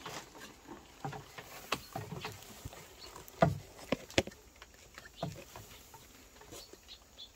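Scattered light knocks and clicks from a WET sensor probe being handled and dipped into a plastic nutrient-solution mixing tank.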